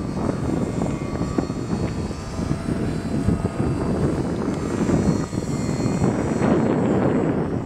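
Parkmaster radio-controlled model plane in flight, its electric motor and propeller giving a faint steady whine, under heavy wind buffeting on the microphone.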